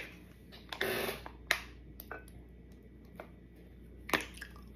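Light clicks and taps of taco-making at the table, with a short crackly crunch about a second in, the sound of handling a taco shell and its fillings.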